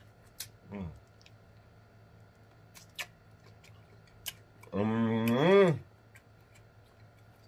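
Close-miked eating of a fried chicken wing: scattered wet mouth clicks and smacks while chewing. About five seconds in comes a loud closed-mouth "mmm" of enjoyment, lasting about a second and rising then falling in pitch.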